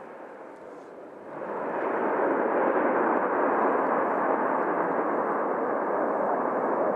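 Pratt & Whitney JT8D jet engines of an SAS MD-82 going into reverse thrust on the landing roll: a steady rushing noise that swells about a second and a half in and then holds loud.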